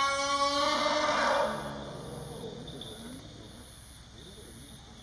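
Young Asian elephant bull calling for his missing mother: one long, loud cry with a clear pitch, strongest for the first second and a half, then sliding lower and fading away over the next second or so.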